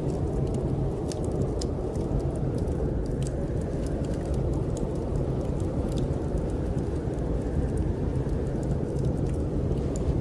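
Steady low rumble of snowstorm wind, with scattered small crackles and pops of a wood fire in a fireplace.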